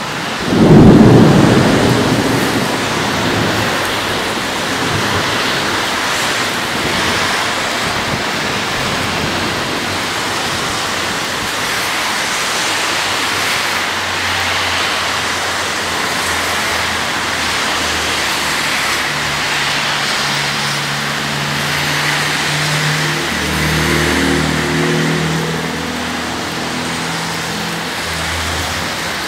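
Thunderstorm: a loud clap of thunder about a second in that rumbles away over a few seconds, over steady rain. In the second half a low, steady hum joins the rain.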